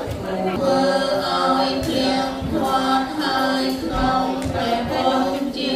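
Several voices singing together in a melody of long held notes, with no clear instruments.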